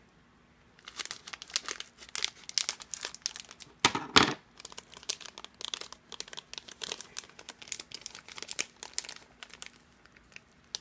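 Plastic foil blind bag crinkling and rustling in the hands as it is opened and its contents pulled out, a dense run of rapid crackles starting about a second in, with one louder crackle about four seconds in.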